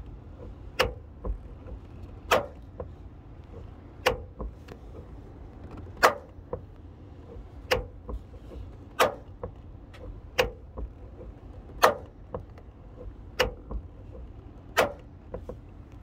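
Peugeot 3008 door knocking with a sharp click about every one and a half seconds and fainter ticks in between, over the low rumble of the car on the road.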